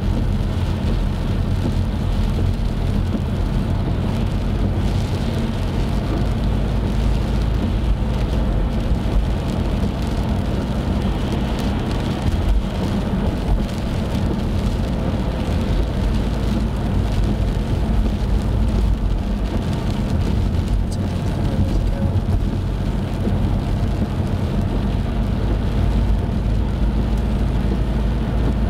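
Steady noise inside a moving car on a rain-soaked road: tyres on wet tarmac and rain on the car over a low, even engine hum.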